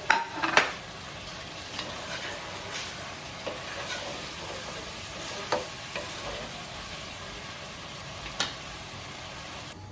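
Chicken curry with freshly added vegetables sizzling in the pot as it is stirred, with sharp knocks of the stirring utensil against the pot, several in the first second and a couple more later.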